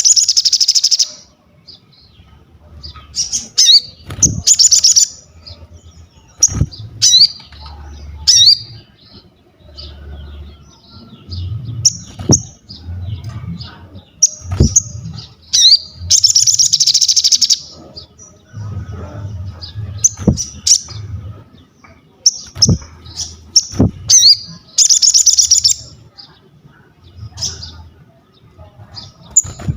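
A sogon singing energetically: repeated loud, short, high whistled calls broken by three rapid chattering trills of a second or two each. Several sharp knocks sound between the calls.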